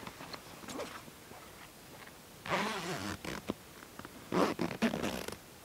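A zipper being pulled in two long rasps, after some soft rustling.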